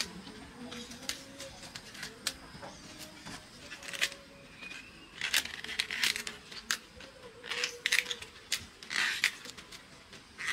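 Irregular clicks and knocks with short bouts of rustling and scraping, thicker near the middle: hands working food and utensils during meal preparation.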